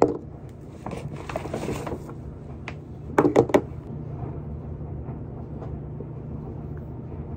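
Glass food-storage containers with snap-lock plastic lids being handled on a tabletop: a knock as one is set down, then light clicks and rustling. A quick burst of three or four sharp sounds comes a little past three seconds in, over a steady low hum.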